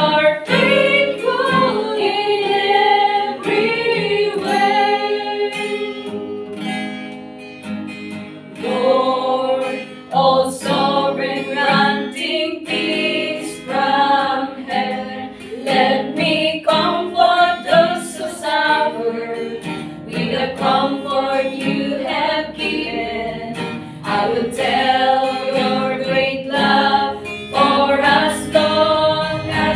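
A group of women singing a Christian worship song together, accompanied by an acoustic guitar.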